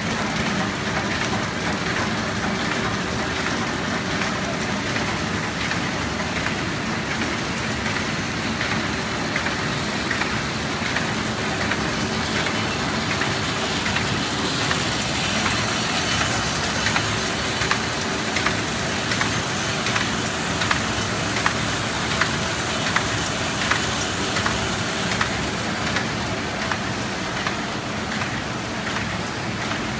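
Servo-driven paper shopping bag making machine with a handle-making unit running in production: a steady, dense mechanical clatter. From about halfway through, a regular clicking beat of roughly one stroke a second stands out.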